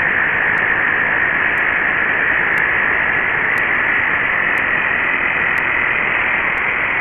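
Two 12-volt portable air compressors wired in parallel, running together under load: a steady, loud high whine over a dense mechanical hiss.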